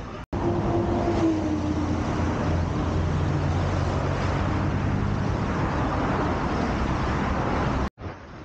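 Expressway traffic heard from a moving vehicle: a loud steady rush of road noise with the low hum of car and lorry engines passing close by. It drops away abruptly near the end to a quieter hum.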